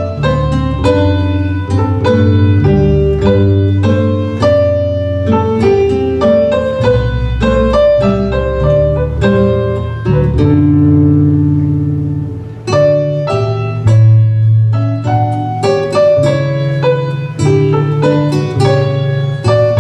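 Live baroque ensemble music: a keyboard plays quick, crisp notes over a held bass line.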